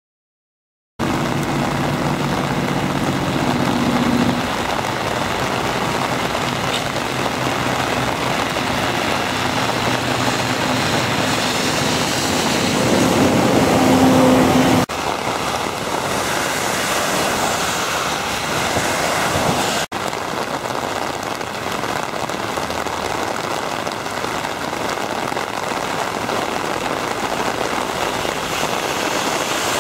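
Steady rush of heavy rain and muddy stormwater runoff pouring over the ground and through a ditch. A low hum runs underneath in the first few seconds and again briefly around the middle. The sound changes abruptly twice.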